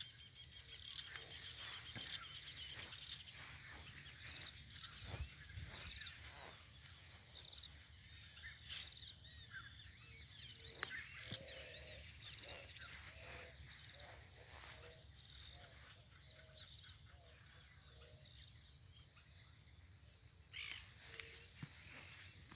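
Faint outdoor ambience: birds chirping, with scattered light rustles and knocks from someone walking over grass.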